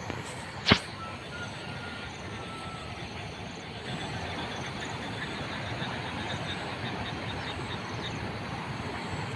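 Steady rush of floodwater, with a single sharp click under a second in.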